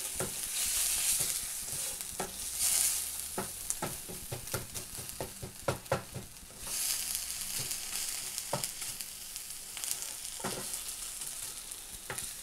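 Beef burger patty, onions and mushrooms sizzling in a non-stick frying pan, with a steady hiss that swells louder a few times. A plastic slotted spatula scrapes and taps against the pan as the food is pushed and turned.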